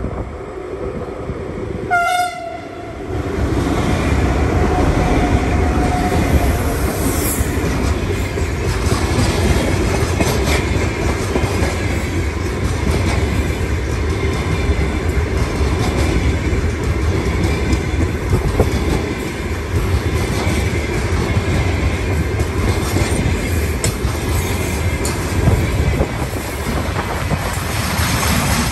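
A diesel freight locomotive gives one short horn blast about two seconds in, then passes. A long train of hopper and tank wagons follows, rolling by with a steady heavy rumble and occasional clacks from the wheels.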